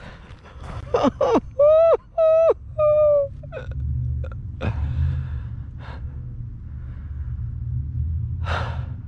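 A man's wordless cries of frustration at a lost bass: five short pitched shouts in quick succession, the longer ones held at one pitch. Then a few sharp knocks and a loud breathy exhale near the end, over a steady low rumble of wind on the microphone.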